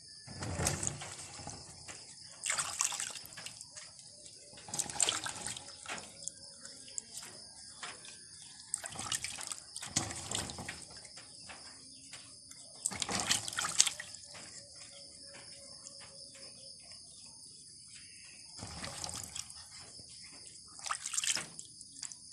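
Water sloshing and splashing in a basin as hands rub and turn peeled cassava chunks to wash them, in irregular bursts every few seconds. A steady high hiss runs underneath.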